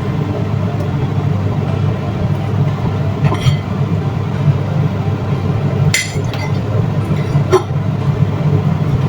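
Kitchen utensils and dishes clinking a few times while squid is cleaned and cut, over a steady low hum.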